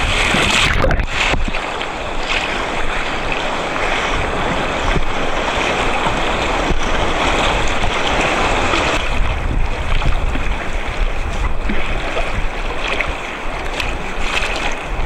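Whitewater rapids rushing and splashing close to the microphone, a loud, steady churning with sharper splashes now and then.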